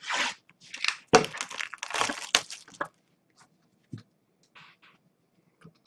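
Plastic shrink wrap being slit and torn off a trading-card hobby box: a run of crinkling and tearing over the first three seconds, then a few faint rustles.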